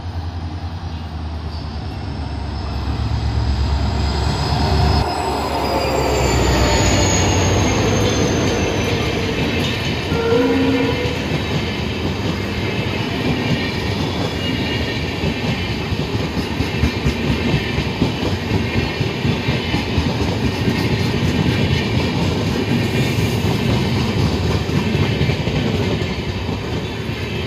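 A WDP4D diesel locomotive passing close at speed: its two-stroke diesel engine rumbles heavily and a high whine falls in pitch as it goes by. The LHB passenger coaches then roll past with a steady fast clatter of wheels over rail joints.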